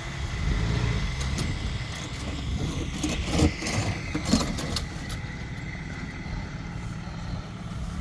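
A vehicle engine running steadily at a low rumble, with a few light clicks and knocks a few seconds in.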